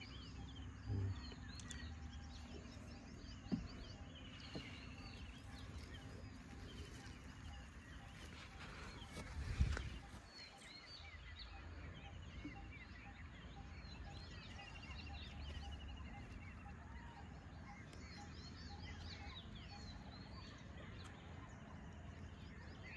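Faint birdsong: many short chirps and trills from several birds, repeating over a low outdoor rumble, with a dull thump about ten seconds in.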